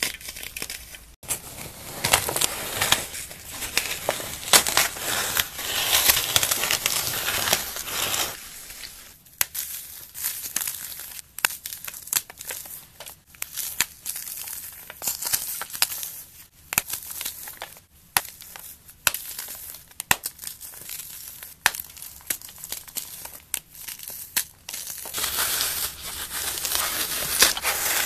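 Dry floral foam coated in hardened paste being crushed and crumbled by hand: dense crunching and crackling. The crunching is heaviest through the first third and again in the last few seconds, with sparser single crunches in between.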